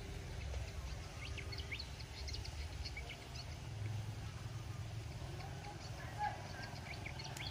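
Birds chirping in quick, short high calls scattered throughout, over a steady low rumble.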